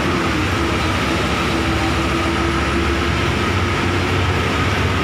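Bus engine running steadily while driving, with heavy road and wind noise heard at the open window. A whine in the engine sound climbs slightly in pitch over the first few seconds, then fades into the drone.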